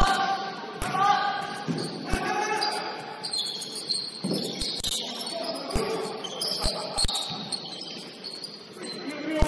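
Basketball game in a gym: sneakers squeaking on the hardwood in short high chirps, the ball thudding on the floor several times, and players calling out.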